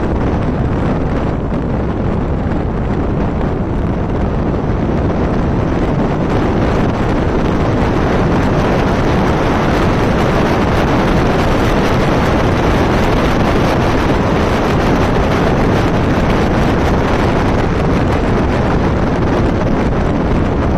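Loud, steady wind noise buffeting the microphone of a camera on a Triumph Tiger Explorer 1200 motorcycle at riding speed, drowning out the engine.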